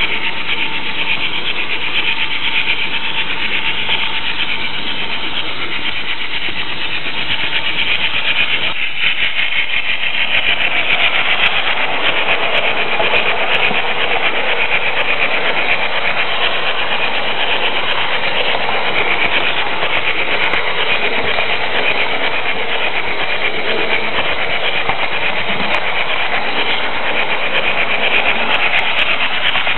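H0 Märklin model train running along the track, heard from a microphone riding on the flatcar: a steady rolling, grinding rattle with a fine, rapid clicking. It grows fuller about ten seconds in.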